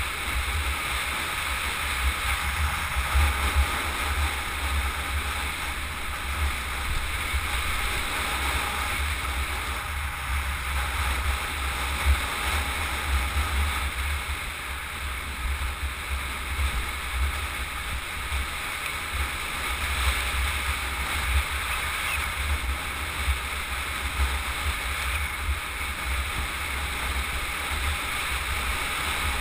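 Wind rushing over a helmet-mounted camera's microphone while riding downhill at speed, a steady buffeting rumble with gusty low thumps and an even hiss.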